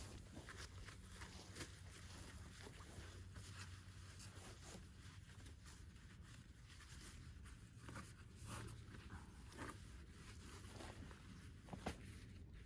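Near silence: a faint low hum with scattered small clicks and rustles.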